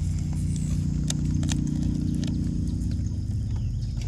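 Steady low hum of the Twin Troller boat's motor running, with scattered light clicks and knocks from a baitcasting reel being cranked.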